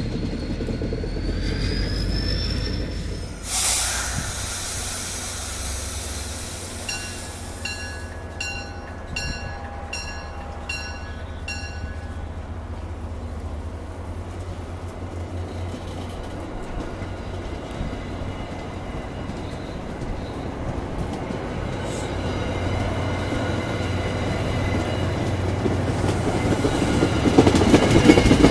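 MBTA commuter rail train rolling past, a steady rumble of coach wheels on the rails that grows louder near the end. A string of about six evenly spaced ringing beeps sounds about a third of the way through.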